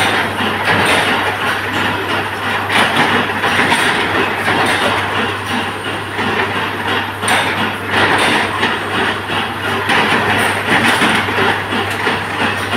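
A 25 kW induction forging machine running under load: a steady low hum under a continuous, uneven clatter of machinery.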